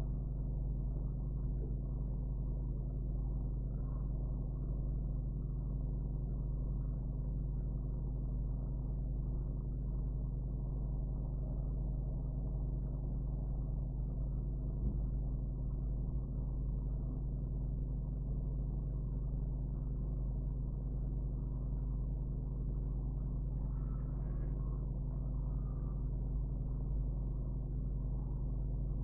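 Steady low background hum with a constant rumble, unchanging throughout.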